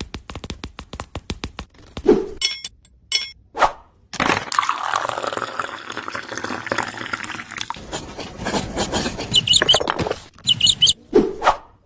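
Tiny bricks being handled and set in place: rapid small clicks and taps, then a few seconds of steady gritty scraping. Two short bursts of high chirps come near the end.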